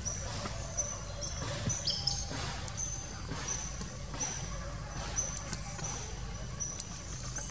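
A short, high chirp repeated about twice a second, with a brief falling squeak about two seconds in and a few soft clicks.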